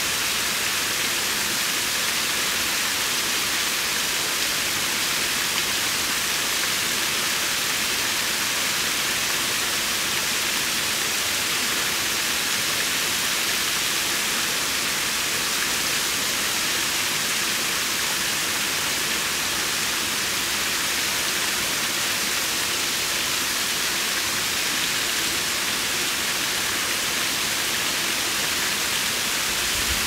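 Steady, unbroken rush of water, an even hiss weighted toward the high end, with no single splashes or changes.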